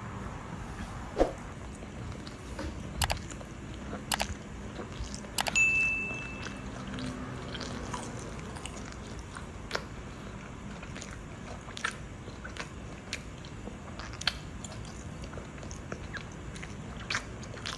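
Close-up chewing and biting of a grilled wild boar meat sandwich in a soft bun, with scattered wet clicks and smacks of the mouth. A brief high steady beep sounds about five and a half seconds in.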